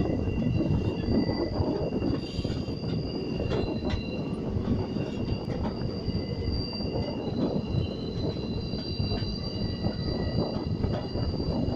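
Express passenger train heard from on board while rounding a sharp curve: steady rumble of wheels on the rails, with a high-pitched wheel squeal from the flanges grinding against the curved track.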